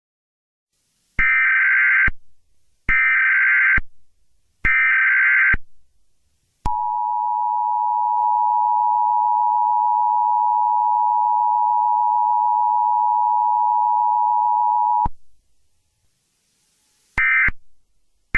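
Emergency Alert System tones: three one-second bursts of SAME digital header data, then the two-tone EAS attention signal held steady for about eight seconds. A short data burst follows near the end.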